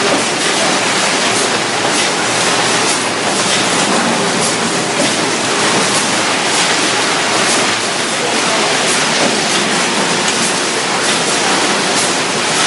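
Conveyor line of a robotic bag palletizer running, carrying bags of ice: a steady, loud mechanical noise with faint irregular clacks.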